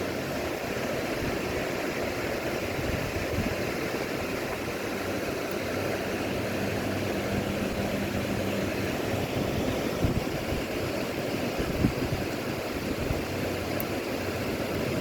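Strong storm wind blowing steadily, with a few low thuds of gusts buffeting the microphone.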